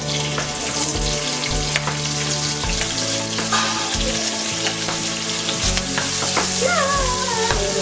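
Sliced onions sizzling steadily as they drop into hot oil with whole spices in a pan, with a spatula stirring them through the oil.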